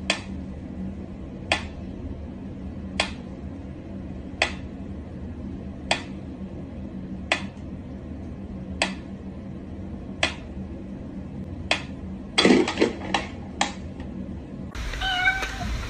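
Pyramid-shaped mechanical metronome ticking slowly, one sharp tick about every second and a half. About twelve seconds in comes a quick cluster of louder clacks and knocks, and the steady ticking stops near the end.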